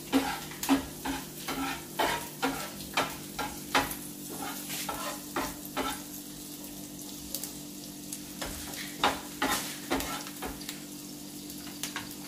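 Chopped onion, tomato and coriander sizzling in butter and oil on a hot tawa while a spatula stirs them, knocking and scraping against the pan about twice a second for the first half, then only now and then.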